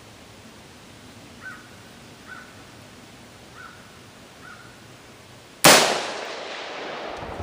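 A single 5.56 mm AR-15 rifle shot, sudden and loud, about three-quarters of the way through, trailing off in a long hiss. Before it, a bird calls four short times over faint open-air background.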